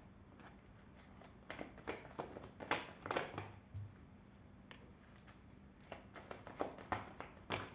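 Oracle cards being drawn from a deck and laid down on a table: light slaps, taps and slides of card stock, in a cluster about a second and a half in and another near the end.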